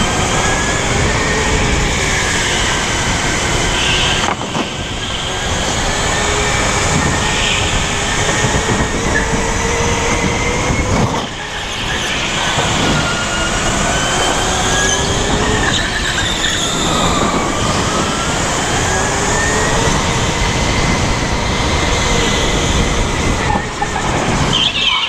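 Sodi RSX rental kart at speed, heard from on board: a steady whining drive note whose pitch rises and falls again and again as the kart speeds up and slows through the corners, with a few short higher squeals.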